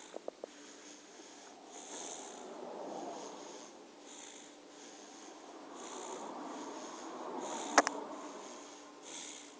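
A baby snoring in his sleep: two long, slow breaths that swell and fade, the second starting about six seconds in. A sharp click sounds near the end of the second breath.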